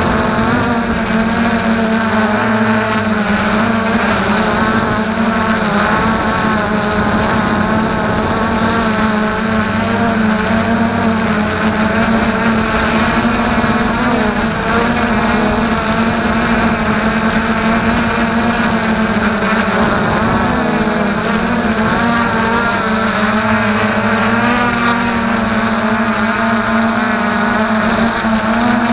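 FreeX Skyview quadcopter's electric motors and propellers whirring steadily in flight, picked up by the camera riding on board. Several tones waver up and down in pitch as the motor speeds shift.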